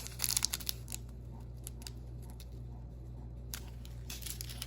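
Small plastic bags of diamond-painting drills crinkling as they are handled, mostly in the first second, then a few faint rustles and clicks over a low steady hum.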